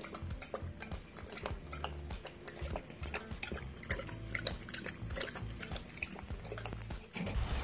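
A police dog lapping water from a running stainless-steel drinking fountain: quick, irregular wet laps and splashes over background music.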